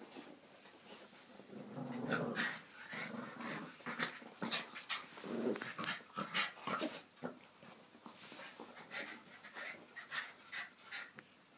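Two small dogs play-fighting, growling in short, irregular bouts. The growling dies down near the end.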